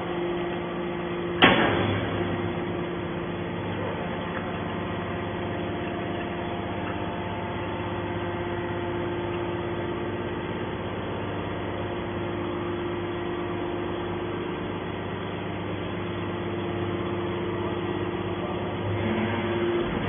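Y81-250 hydraulic scrap metal baler running with a steady hum from its hydraulic power unit while the ram pushes a compressed bale of scrap out of the press. A single sharp bang about a second and a half in.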